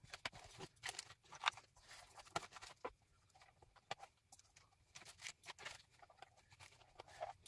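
Faint, irregular clicks, taps and rustles from hands handling a cardboard Google AIY voice kit case and plugging cables into the Raspberry Pi inside it.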